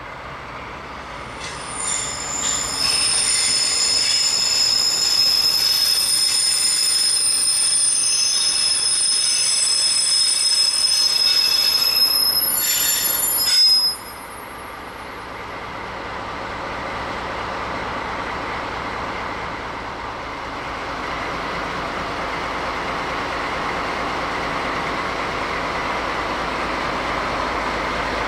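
DD16 diesel-hydraulic locomotive pulling in, its brakes squealing in several high, steady tones that cut off sharply about fourteen seconds in. After that the locomotive's diesel engine runs steadily.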